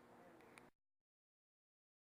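Near silence: a faint hiss with a low steady hum and a small click, which cuts off under a second in, leaving dead silence.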